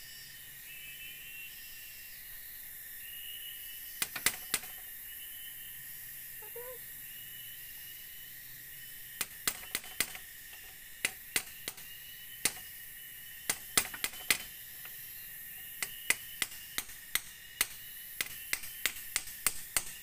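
Sharp clicks and knocks of bamboo being handled and fitted by hand: a short cluster about four seconds in, then a long irregular run of taps from about halfway on. Behind them, a steady high drone of forest insects.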